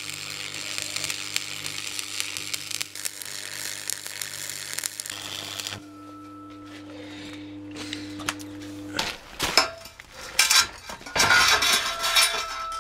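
Wire-feed welder laying a bead on steel car wheel rims: a steady crackling sizzle over the machine's hum for the first six seconds or so. It then goes quieter to a hum, and near the end there are several metallic clanks and knocks.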